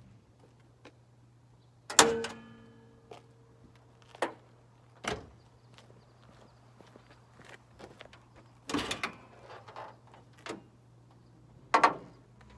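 Hood of a 1995 Toyota 4Runner being opened: a sharp metallic clunk with a brief ringing tone about two seconds in, then scattered knocks and clunks as it is lifted and propped, with a quick double click near the end. A faint steady hum runs underneath.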